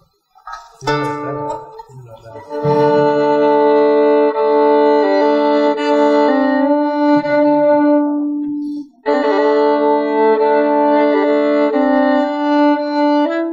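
Live ensemble music in a slow Celtic style: a fiddle plays long, held notes over plucked strings. The melody opens with a few short notes, breaks off briefly about two-thirds of the way in, then resumes.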